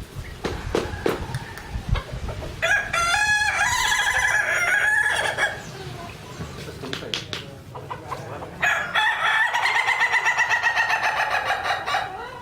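Ayam ketawa (laughing chicken) rooster crowing twice, each crow a long, rapidly stuttering call of about three seconds. A few faint knocks come before the first crow.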